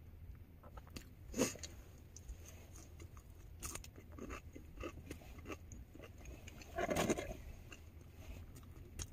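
Faint chewing and mouth sounds of someone eating french fries, with scattered small clicks and rustles. A slightly louder sound comes about seven seconds in.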